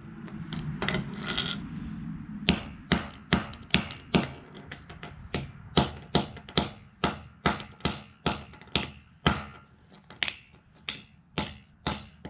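Claw hammer striking a small plastic Bluetooth speaker against a concrete floor: a few scattered blows at first, then a fast run of sharp knocks, about two to three a second.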